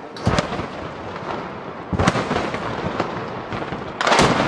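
Three explosions from shelling of the town, about two seconds apart, each a sudden blast trailing off into a long rolling rumble.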